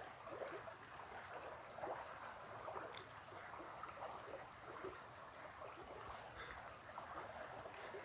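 Faint steady rush of a creek, with light rustling of footsteps through dry leaf litter and a few soft clicks.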